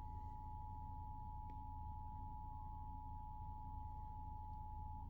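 Emergency Alert System attention signal: the steady two-tone alarm (853 and 960 Hz sounded together), cutting off right at the end, over a low hum.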